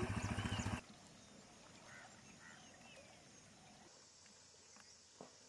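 A small engine running with a fast, even chugging beat, cut off suddenly under a second in. After it come faint bird chirps over quiet outdoor background and one short click near the end.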